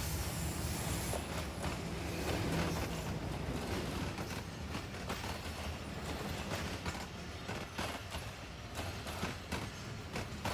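Low steady hum with scattered creaks and light knocks, which come more often in the second half.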